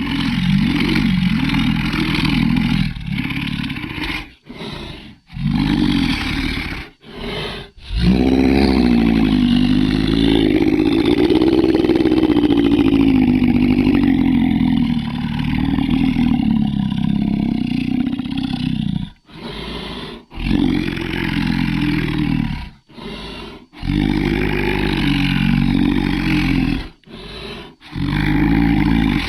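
A string of monster roar and growl sound effects, each cut off sharply with short silent gaps between. The longest is a low, wavering roar that starts about eight seconds in and lasts about eleven seconds.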